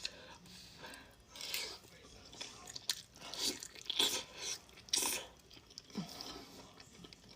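Close-miked chewing and eating sounds: wet, irregular smacks and crunches of a mouthful of tender braised oxtail, loudest in the middle.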